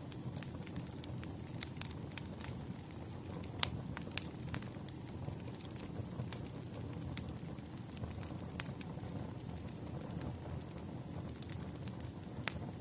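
Wood fire burning, a steady low rumble of flames with irregular sharp crackles and pops from the burning logs, one pop standing out about three and a half seconds in.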